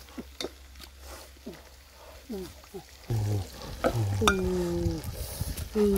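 Wooden spoon clicking and scraping against a metal cooking pot as chicken and papaya pieces are stirred. From about three seconds in there are several low, pitched hums.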